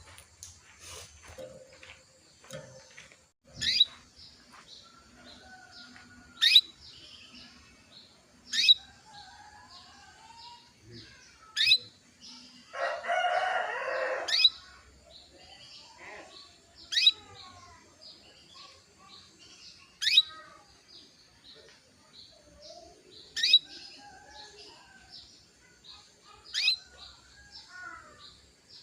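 Female canary giving short, sharp chirp calls, one every two to three seconds, with fainter twittering between them. These are the calls of a hen in breeding condition, used to stir male canaries into song. A noisy burst lasting about a second and a half comes near the middle.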